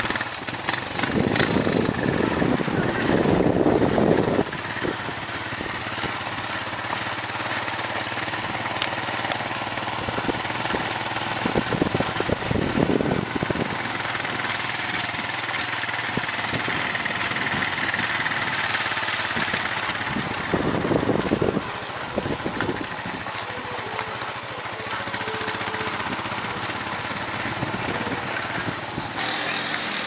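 Motorcycle engine running steadily while riding along a dirt road, heard from the pillion seat, with a few louder surges of noise along the way.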